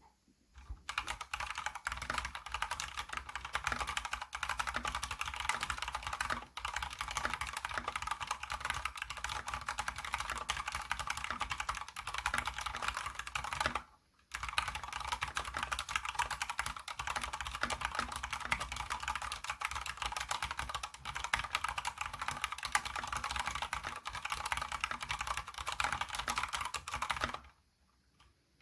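Fast typing on an Anne Pro 2 mechanical keyboard with Cherry MX Speed Silver linear switches: a dense, continuous clatter of keystrokes that breaks off briefly about halfway through, then resumes and stops shortly before the end.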